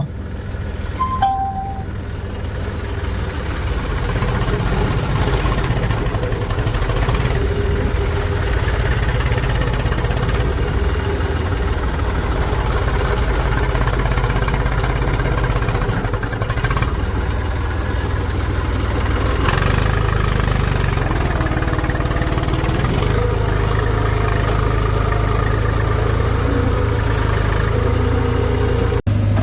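Heavy-machinery diesel engine running steadily, its low note shifting slightly a few times.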